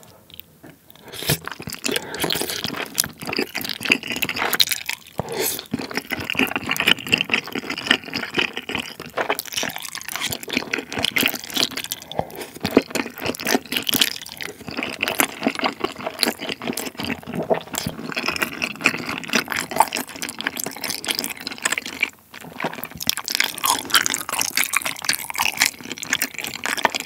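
Close-miked eating sounds: wet slurping and chewing of wide Chinese glass noodles coated in thick mala sauce, a steady stream of small sticky, squelchy clicks with a brief pause about 22 seconds in.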